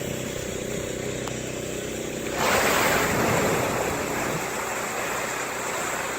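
Steady hum of an idling boat engine, then about two and a half seconds in a sudden loud splash of water that fades away over a second or two as something breaks the surface.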